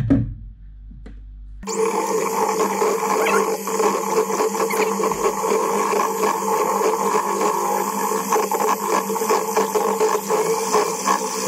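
Kenwood electric hand mixer switching on suddenly a little under two seconds in and then running steadily, its twin beaters whisking a pancake batter of flour, milk and eggs.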